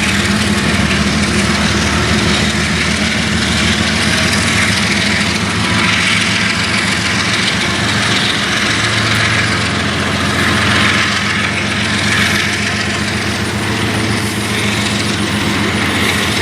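Diesel-electric freight locomotives, GE and EMD units, working under throttle as they pull an intermodal train: a loud, steady engine drone over rumbling wheel and rail noise.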